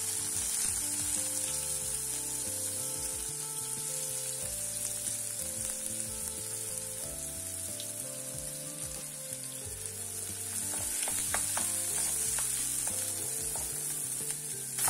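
Chopped onions sizzling in a little hot oil in a nonstick kadai, a steady hiss. From about ten seconds in, a slotted spatula stirs them with a few light clicks and scrapes against the pan.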